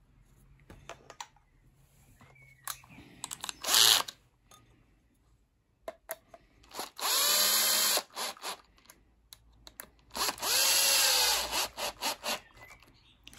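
Cordless drill/driver running in two short bursts of about a second and a half each, its motor whining at a steady pitch as it drives screws into the end cap of the nail gun's small air compressor cylinder. A short clatter of handling comes about four seconds in, and small clicks fall between the runs.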